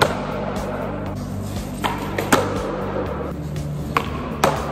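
Skateboard clacking on a concrete floor during hospital-flip attempts: several sharp board impacts, two of them pairs about half a second apart, over background music.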